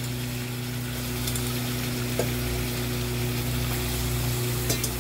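Raw goat meat sizzling in hot oil with browned onions in an aluminium pressure cooker, a steady frying hiss as the meat starts to sear, with a couple of faint ticks and a steady low hum underneath.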